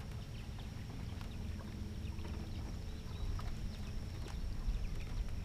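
Jon boat under way on a pond while trolling: a low steady rumble with a faint high steady tone above it and scattered light knocks.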